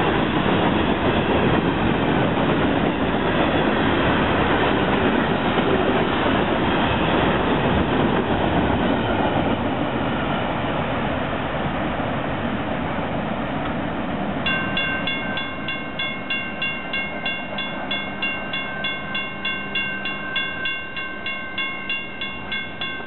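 Empty ballast hopper cars of a freight train rolling past, their wheels rumbling and clattering on the rails and fading as the end of the train moves away. From about two-thirds of the way in, a railroad crossing bell rings steadily, two to three strikes a second.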